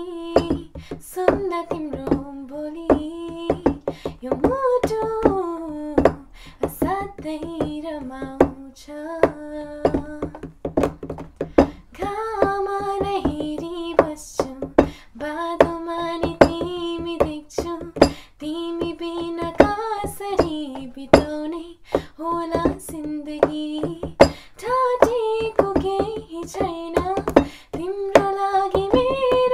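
A girl singing a tune with held notes, unaccompanied, with many sharp taps scattered through it.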